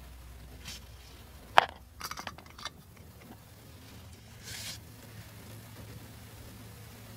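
Hard plastic toy pieces handled and set down: a sharp plastic click about a second and a half in, then a quick run of lighter clicks, and a soft brushing rustle a few seconds later.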